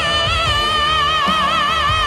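A male singer holding one long, high sung note with steady vibrato into a microphone, over live band accompaniment.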